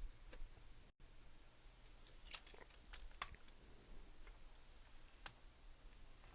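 Near silence with a few faint clicks, a cluster about two to three seconds in and one more near the end: mechanical keyboard switches being pressed as the PCB is held down firmly onto the plate for soldering.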